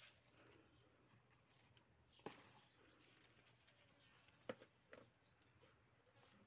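Near silence, broken by a few soft knocks and rustles of leaves and stems brushing past, and two short high chirps.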